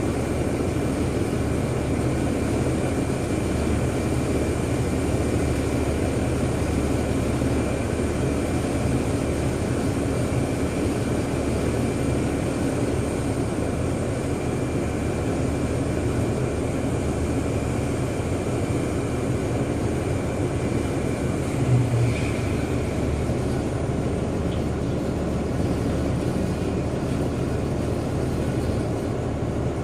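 Jet airliner engines running: a steady roar with a thin high whine, and one short louder bump about two-thirds of the way through.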